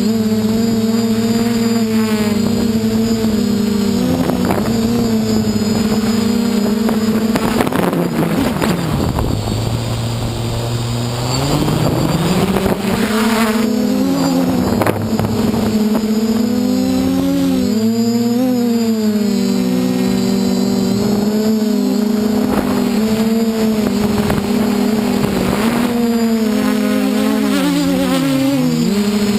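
DJI F450 quadcopter's brushless motors and 8-inch propellers buzzing in flight, the pitch rising and falling as the throttle changes. The pitch drops and the sound eases off for a few seconds about a third of the way through, then climbs back.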